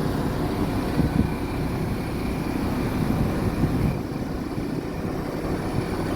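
A diesel train's engine running steadily, a dense low rumble with a few brief louder knocks about a second in.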